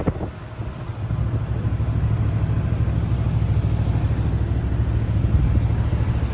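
Steady low rumble of a road vehicle running, growing louder about a second in.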